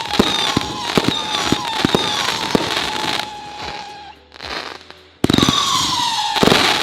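Brothers Show N' Shine 36-shot 500-gram consumer fireworks cake firing: launch thumps about two a second over steady crackle, with howling tails whistling and falling slowly in pitch. It dies down about three seconds in, then a fresh volley starts suddenly about five seconds in.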